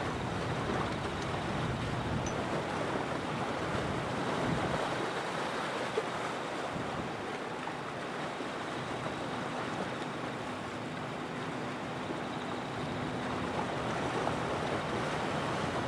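Steady, even rushing ambience at the seashore at night, with a faint low hum that fades in and out. A single small click about six seconds in.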